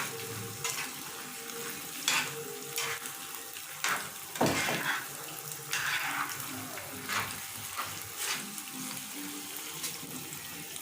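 A spoon stirring creamy chicken pasta in coconut milk around a pot set on a low flame, with irregular scraping strokes about once a second over a low sizzle.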